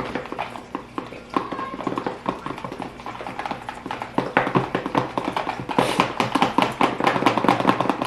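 Rapid, continuous clicking and tapping of utensils against plastic containers as fluffy slime mixture is whipped, like beating eggs. It grows louder about halfway through.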